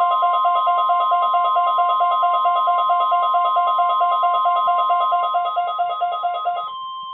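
NOAA Weather Radio's 1050 Hz warning alarm tone for the required weekly test: a steady high tone. Over it a weather alert receiver sounds a rapid pulsing beep, about eight beeps a second. Near the end the beeping stops and the steady tone carries on alone.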